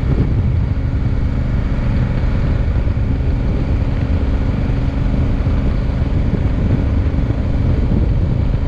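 Honda Africa Twin motorcycle engine running steadily at cruising speed, with wind noise on the microphone.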